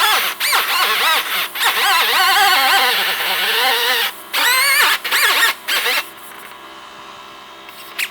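Die grinder with a cut-off wheel cutting fiberglass: a loud, high whine that wavers up and down in pitch as the wheel bites, dropping out briefly twice and stopping about six seconds in.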